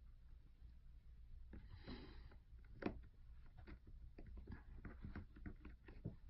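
Faint, scattered small clicks and taps of repair tools and tiny parts being handled on an open iPhone 7, with one sharper click near the middle.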